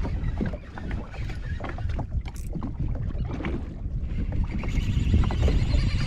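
Water sloshing against a jet ski's hull at sea, with wind buffeting the microphone and scattered small knocks and splashes.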